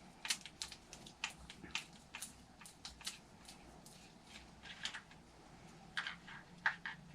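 Light, irregular clicks and taps of small plastic and metal parts being fitted as the throttle linkage is hooked up on an RC truck's nitro engine. The clicks come thick and fast at first, thin out after a few seconds, and end with two sharper clicks near the end.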